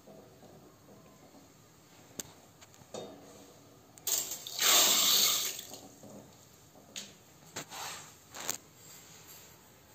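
A pour into a stainless steel pot of water, lasting about a second and a half, starting about four seconds in. There are a few light knocks before and after it.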